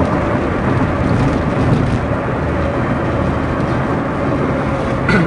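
Steady low rumble of tyre, road and engine noise inside a Toyota Prius cabin while driving up a long bridge incline, with the petrol engine running under load.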